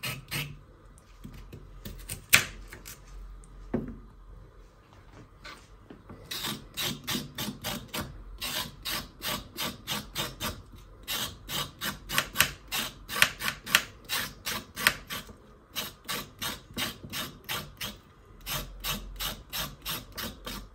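A kitchen knife scraping the skin off a raw carrot over a wooden cutting board, in quick rasping strokes of about three a second. There is a lull between about three and six seconds in, and a sharp knock just after two seconds in.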